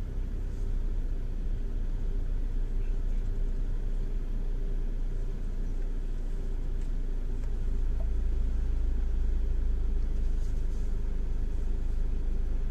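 Car's running engine and low cabin rumble heard from inside the car as it creeps forward and then stands still, with a faint steady hum. The low rumble grows louder about seven and a half seconds in.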